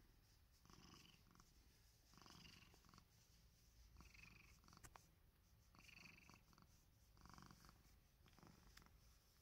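A gray-and-white domestic cat purring faintly while being stroked, the purr swelling and easing with each breath about every second and a half to two seconds. There is a soft click about five seconds in.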